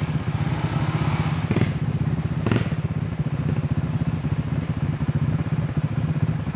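Off-road motorcycle engine running steadily at low revs close by, its fast even firing beat unchanging, with a couple of sharp clacks about one and a half and two and a half seconds in.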